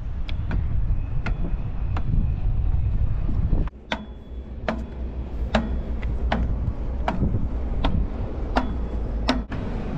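Footsteps on the boards of a wooden outdoor stairway, regular clicks at a walking pace of a little more than one step a second, over wind rumbling on the microphone.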